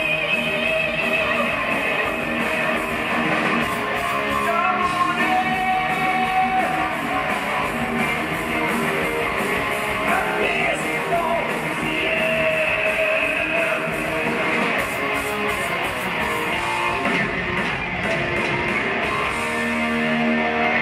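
Heavy metal band playing live: distorted electric guitars over drums and bass, with a male voice singing at times, recorded from within the audience.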